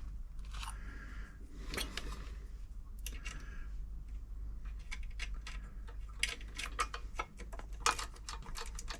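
Scattered light clicks and scrapes of a screwdriver and small metal parts being handled on a sewing machine as the needle-plate screws are taken out, over a steady low hum.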